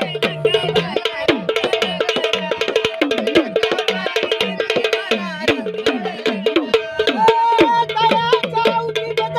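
Sambal drums beaten fast with sticks: a dense, rapid stream of strokes, some with falling pitch, over a steady held drone. A higher wavering melodic tone joins about seven seconds in.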